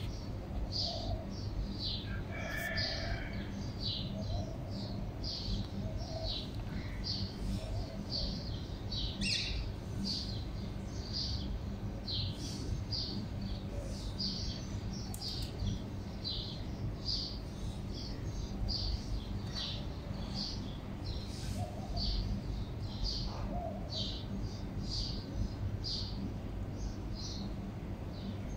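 A small bird chirping over and over, short high chirps about one or two a second, over a steady low background rumble.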